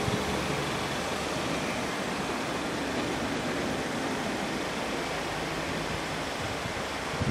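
Steady, even noise of outdoor air and wind on the microphone, without distinct events.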